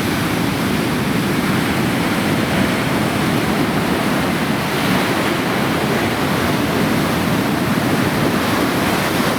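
Storm surf: heavy waves breaking and churning into foam, a steady loud rush with no let-up, with wind buffeting the microphone.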